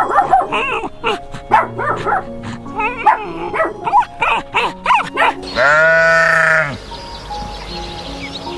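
Animal calls over background music: a rapid run of short chirping calls, then one long call about six seconds in.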